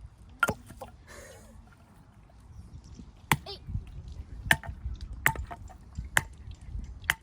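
Firewood being chopped: about six sharp strikes, one near the start and then roughly one a second from about three seconds in.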